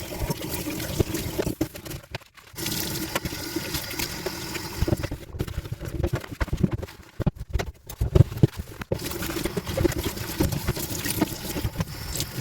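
Running water splashing, with irregular spatters, broken by a few brief drops that sound like edits.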